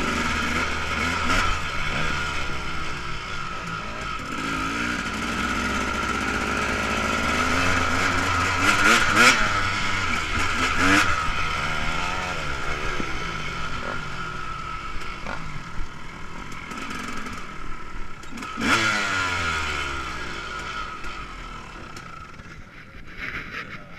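KTM 250 dirt bike engine being ridden, its pitch rising and falling with the throttle, with sharp revs about nine, eleven and nineteen seconds in. It falls quieter near the end as the bike slows.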